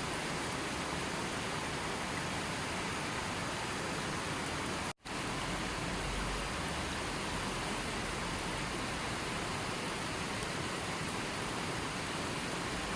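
Steady rushing of running water, an even hiss, broken by a split-second dropout to silence about five seconds in.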